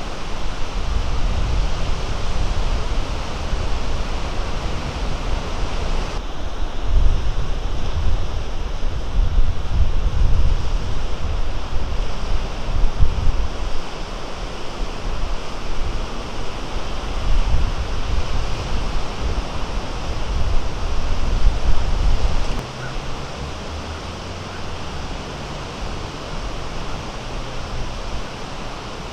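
Small Great Lakes waves breaking and washing in, with gusty wind buffeting the microphone in a heavy low rumble. The wind rumble drops away sharply about three-quarters of the way through, leaving the steadier wash of the surf.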